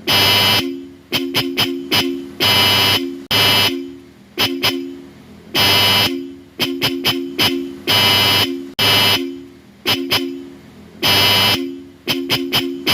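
Bosch Europa electric car horn sounding in repeated blasts under a second long, every couple of seconds, with clusters of quick short toots between them.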